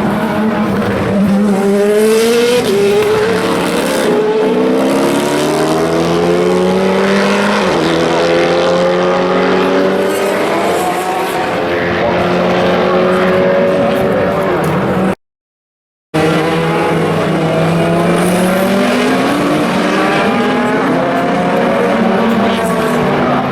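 Race car engines accelerating hard through the gears, the pitch climbing and then dropping back at each upshift. The sound cuts out completely for about a second midway, then more engine revving rises and falls.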